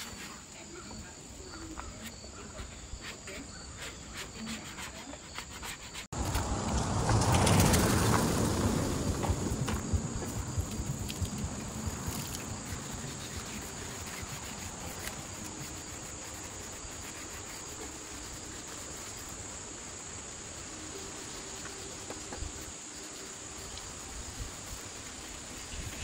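A pad rubbing along a wooden bed rail for the first few seconds, then steady insect chirping. About six seconds in, a loud swell of rushing noise fades away over several seconds.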